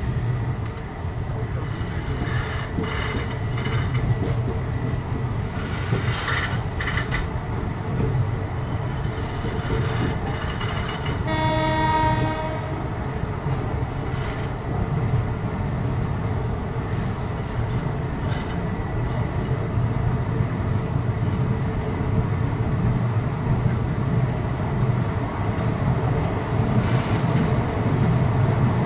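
Express train heard from on board as it runs slowly along a station platform: a steady low rumble of the coaches, with knocks from the wheels and couplings in the first several seconds. A train horn sounds once, for about a second and a half, a little before the middle.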